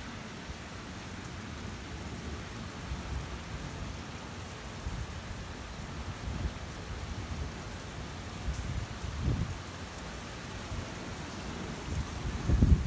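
Steady rain falling during a thunderstorm, with low rumbles of thunder. A louder rumble builds near the end.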